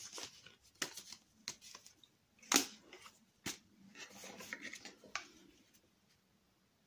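Handling noise from cardboard tags and a leather card holder being shuffled, picked up and set down: scattered light taps and rustles, the sharpest tap about two and a half seconds in and another about a second later.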